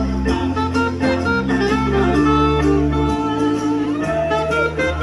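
Live band playing an instrumental passage between sung lines: guitar over a steady bass line, with a sliding guitar note near the end.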